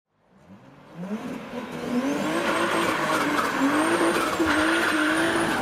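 Car engine accelerating: it fades in, its pitch climbs over the first two seconds and then holds roughly steady, with a thin high whine above it.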